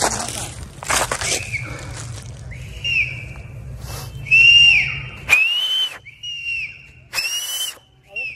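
About six short whistled notes, each rising and then falling in pitch, with rustling and crunching in the first second or so.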